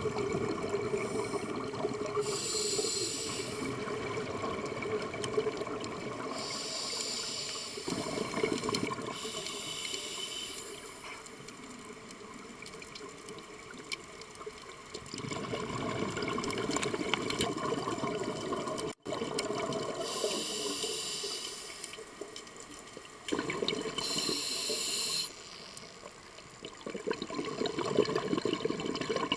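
Scuba regulator breathing heard through an underwater camera housing: bubbling exhalations and hissing inhalations that come and go every few seconds, over a steady underwater rush.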